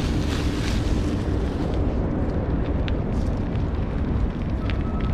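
Wind buffeting the microphone over the rumble and rattle of a mountain bike rolling along a leaf-covered dirt trail, with scattered clicks and crunches. A faint steady high tone comes in near the end.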